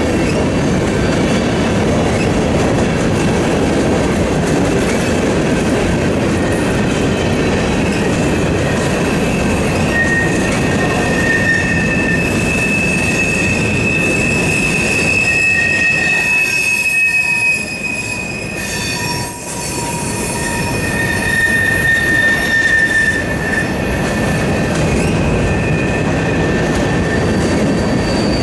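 Freight train of covered hoppers and centerbeam flatcars rolling past, a steady rumble of steel wheels on rail. High wheel squeal joins in about a third of the way through and lasts until near the end, with a brief quieter moment about two-thirds through.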